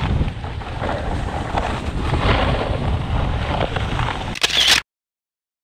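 Rumbling wind buffeting and rustling handling noise on an action camera's microphone, with a louder rustle just before the sound cuts out to dead silence nearly five seconds in.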